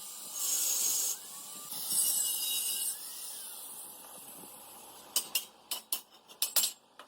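Two short bursts of spray hissing, the second a little over a second long, then about eight sharp clicks and clinks in quick succession near the end.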